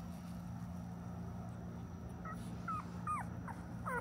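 One-week-old pocket bully puppy whimpering: a quick run of short, high squeaks, each falling in pitch, starting about halfway in. A steady low hum runs underneath.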